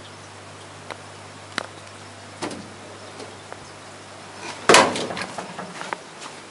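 Metal kitchen microwave stand with a built-in rice bin being handled: a few light clicks, then a louder clunk about four and a half seconds in followed by a short rattle, over a faint steady hum.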